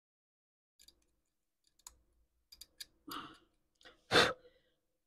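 Small sharp clicks and taps of a metal hand tool working on a circuit board, then a few short noisy bursts, the loudest a brief rush a little after four seconds in.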